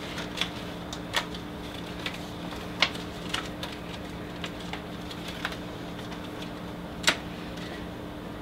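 Scattered light clicks and taps of 70mm film and the metal sprocket, rollers and shoe of a Norelco DP70 projector being handled as the film is threaded by hand onto a sprocket, over a steady low hum. The two sharpest clicks come about three seconds in and near the end.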